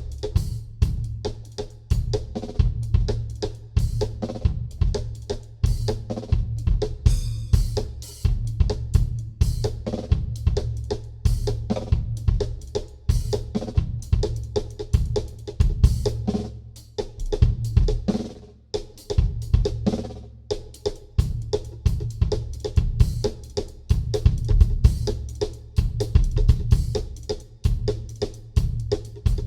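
Gretsch Renown Maple acoustic drum kit played solo, with Sabian cymbals: dense, continuous fills across bass drum, snare and toms, with hi-hat and crash cymbals mixed in.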